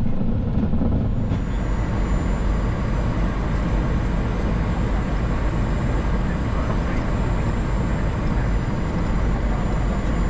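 Steady low rumble and rush of a Boeing 737-700 flight deck with the aircraft moving. A faint, thin high whine comes in about a second in.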